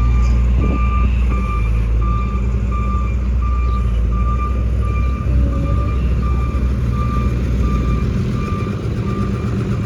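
Bulldozer's diesel engine running under a steady reversing alarm, about one and a half beeps a second as the machine backs up. The engine's low rumble eases near the end while the beeping goes on.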